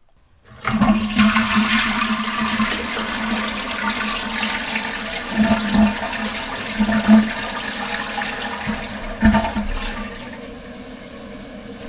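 Toilet flushing: a rush of water starts suddenly about half a second in, gurgling with a few louder surges, then settles to a quieter steady rush near the end.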